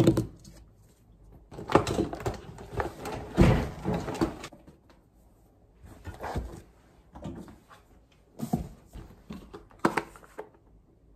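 Belongings being handled and packed into a canvas tote bag: a stretch of fabric rustling and clatter, with several separate knocks of objects set down on a desk.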